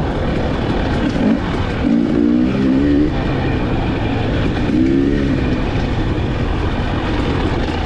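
2021 KTM 300 XC TPI's single-cylinder two-stroke engine running under way, with a steady low rumble and its pitch swelling up and down as the throttle rises and falls, about two seconds in and again around five seconds.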